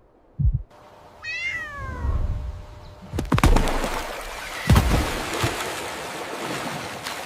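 An animal gives one short call that falls in pitch, about a second in. It is followed by a dense rushing noise with two sharp thuds.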